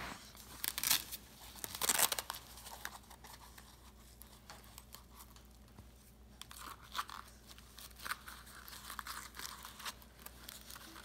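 A dog boot with Velcro straps being worked onto a dog's hind paw: scattered rustling and scratchy crinkling of its fabric and straps, loudest about two seconds in.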